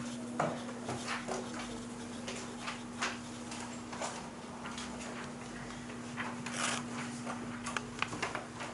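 Scattered small knocks, rustles and shuffles of people moving about a quiet classroom, over a steady low hum. A felt eraser wipes the chalkboard near the start.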